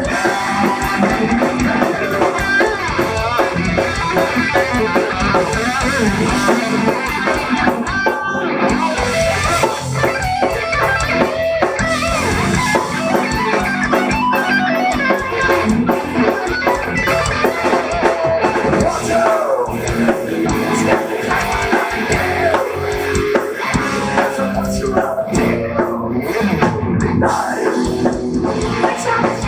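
A live rock band playing loudly through a stage PA: electric guitar, bass guitar and drum kit.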